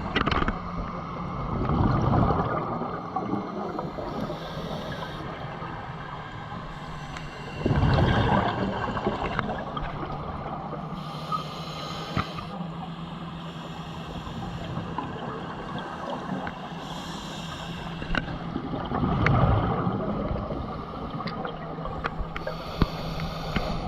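Scuba diver breathing through a regulator underwater: a short hiss on each inhale and a loud rush of exhaled bubbles three times, over a steady low hum and scattered faint clicks.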